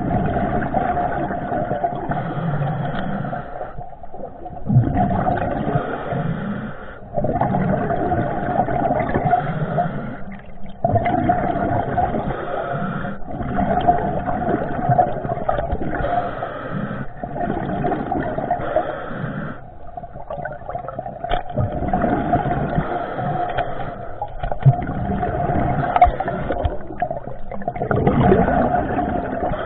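Underwater noise around a diver's camera: a steady drone with rushing water and scraping, in stretches of a few seconds broken by brief dips, with a few sharp clicks.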